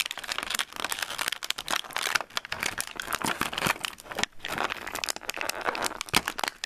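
Clear plastic bag crinkling and rustling as it is handled, a dense run of irregular crackles that stops near the end.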